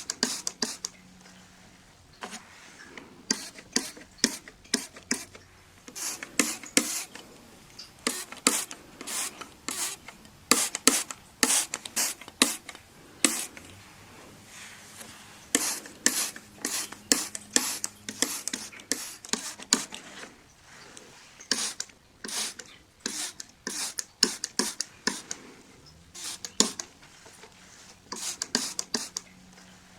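Window glass being cleaned by hand: short, quick rubbing and wiping strokes on the pane, coming in irregular clusters with brief pauses between.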